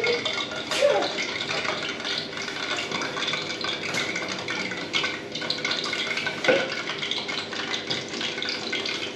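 Kakloo plantain-fritter batter deep-frying in hot oil: a steady sizzle with many small pops and crackles. Two brief louder sounds stand out, about a second in and a little past the middle.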